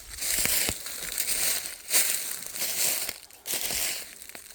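Footsteps crunching through dry leaf litter and twigs on a forest floor: a few separate crunching steps.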